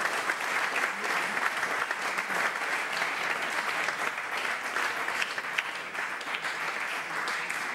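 Audience applauding, a dense crackle of many hands clapping that eases slightly near the end.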